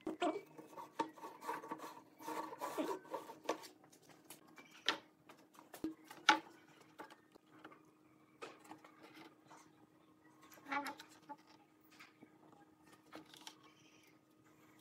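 Scattered wooden clicks, knocks and rubbing as a kerfed wooden strip is handled and pressed around the rim of a round wooden tabletop, with a few sharper knocks among them. A faint steady hum runs underneath.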